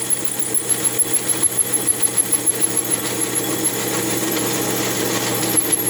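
Metal lathe running while taking the final facing cut on a chainsaw cylinder base: a steady motor hum and high whine, with a rapid regular pulsing about five times a second that fades out about halfway through.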